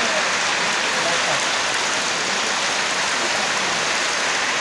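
Rain falling steadily: an even, continuous hiss that does not change.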